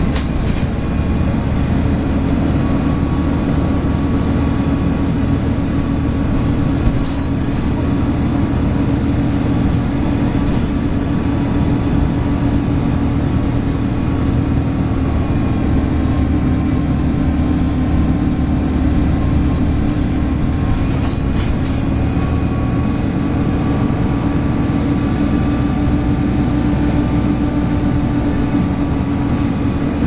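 Alexander Dennis Enviro 300 single-decker bus heard from inside the saloon while on the move: a steady drivetrain running sound with the whine that bus enthusiasts call 'hoovering', like a vacuum cleaner, typical of the cooling fan. Faint light rattles tick now and then.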